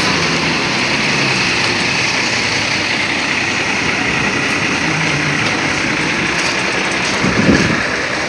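Steady noise of bus engines running at a terminal, with a short, louder low burst about seven and a half seconds in.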